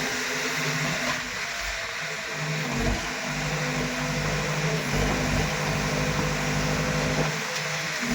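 Heavy diesel engine of a bulldozer or tractor running steadily, its note shifting a little as the revs change.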